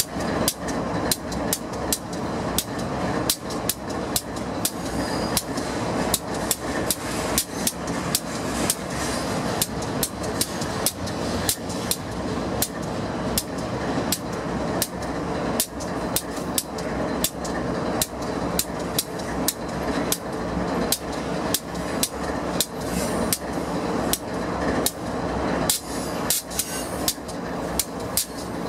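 Steel wheels of a passing double-stack intermodal freight train clacking over the rails in a quick, uneven series of sharp clicks, two or three a second, over a steady rolling rumble and a low hum from an idling diesel locomotive.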